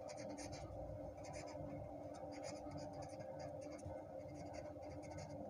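Pen scratching on paper as a word is handwritten, in quick short strokes, over a faint steady hum.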